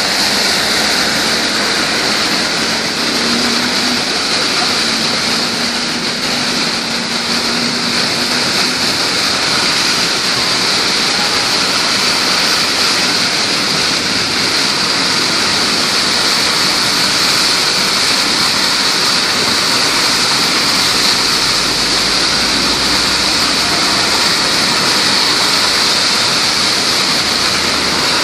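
Heavy monsoon rain and water rushing across a flooded road: a loud, steady hiss of water.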